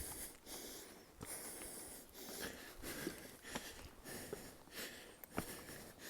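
A hiker breathing heavily and fast, about one breath a second, from the effort of a steep climb, with a few short knocks.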